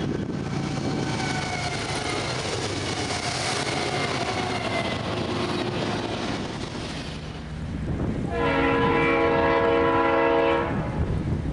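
Double-stack freight train rolling past close by at speed, with a faint falling tone over the wheel noise. After a break, a diesel locomotive's multi-chime air horn sounds one long, steady blast of about two and a half seconds from the lead unit of three approaching Norfolk Southern GE diesels.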